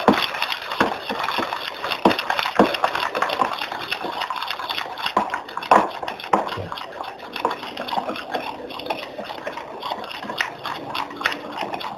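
A spoon stirring and scraping a slime mixture of glue, boric-acid water and detergent in a plastic tub, with irregular clicks and knocks of the spoon against the tub.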